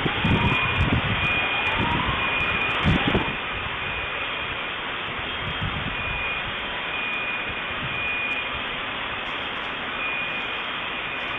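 Street sound picked up by a surveillance camera's low-quality microphone: a steady roaring rush of noise, with deep rumbles over the first three seconds or so and a faint high beep repeating about once a second, like an alarm.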